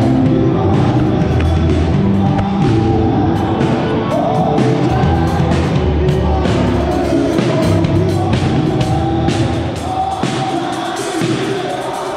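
Live worship band playing: drum kit with steady beats, keyboard and singing.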